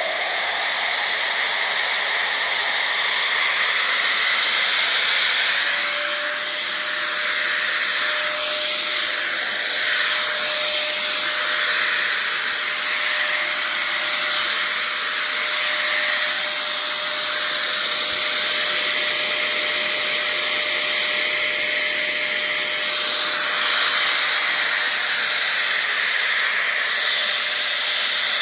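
SCIJOY 8000 Pa cordless handheld vacuum cleaner running steadily, a loud rush of air, with a steady high whine joining about six seconds in.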